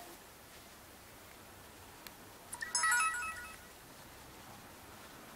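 Sony HDR-AS30V action camera's power-on chime: a quick melody of short electronic beeps, about three seconds in and lasting under a second, just after a faint click.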